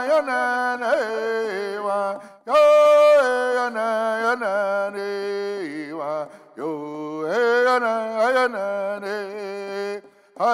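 A man singing a Seneca corn song solo in vocables, in long held notes that slide between a few pitches. Short breath breaks come about two and a half seconds in and again near the end.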